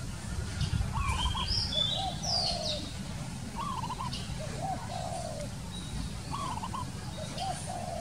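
Spotted dove cooing: a two-part phrase of low coos repeated three times, evenly spaced. A smaller bird chirps a few high notes about a second in.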